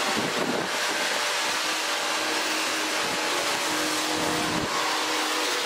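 Vacuum cleaner running steadily: a constant motor hum over rushing air.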